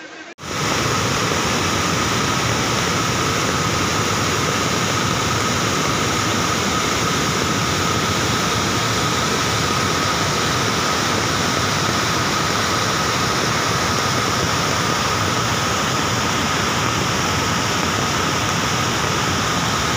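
Loud, steady rush of muddy floodwater pouring down in a torrent, starting abruptly about half a second in.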